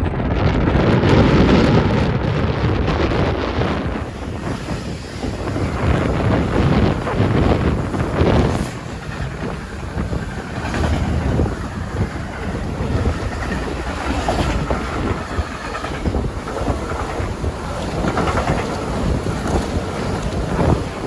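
A train passing, its rumble mixed with heavy wind buffeting the microphone.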